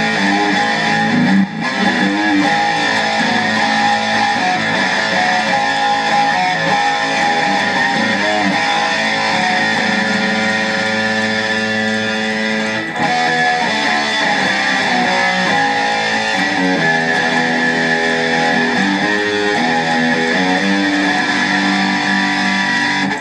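Aria Pro II PE Elite electric guitar played through a Digitech RP-250 effects patch into a Kustom Defender V5 tube amp, ringing notes and chords at an even level.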